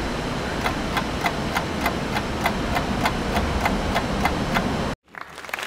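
Steady ticking, about three clicks a second, over a constant background hum; the sound cuts out abruptly about five seconds in.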